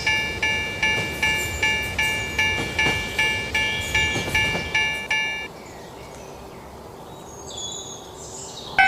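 Railroad level-crossing warning bell ringing in an even rhythm, about two and a half strikes a second, and stopping about five and a half seconds in. A low rumble with a few high chirps follows, and just before the end a crossing bell at a different pitch starts up.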